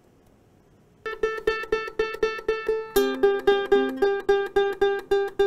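Ukulele open strings plucked one at a time, about four plucks a second, starting about a second in: a single note repeated at first, then lower notes alternating from about two seconds later. The notes are played as commands to a sound classifier.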